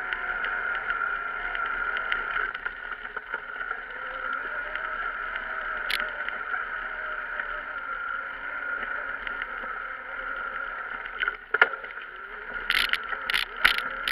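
Bicycle rolling along: a steady high whine throughout, with a few knocks and then a run of rattling knocks near the end as the tyres leave the asphalt for a stony dirt path.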